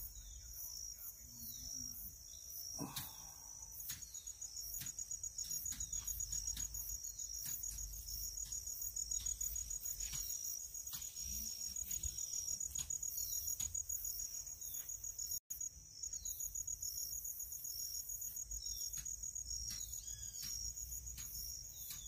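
Field insects trilling steadily in a high, finely pulsed buzz, with short downward-sliding chirps repeating every second or so over a low rumble. The sound cuts out for an instant about fifteen seconds in.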